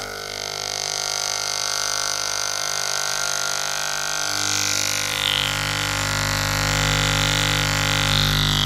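Electric hair clippers buzzing steadily while shaving a head. About four seconds in, the buzz grows fuller and deeper.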